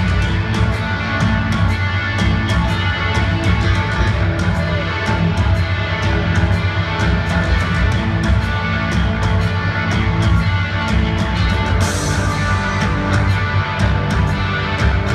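Live rock band playing: electric guitars and a drum kit with a steady beat, heard through the hall from the audience, with a cymbal crash about twelve seconds in.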